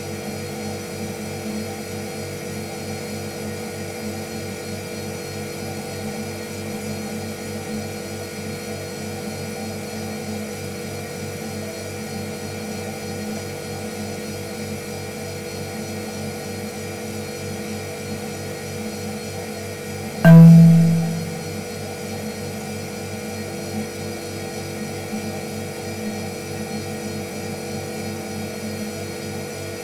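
A steady hum made of several fixed tones. About twenty seconds in, a sudden click is followed by a short, loud low tone that dies away within about a second.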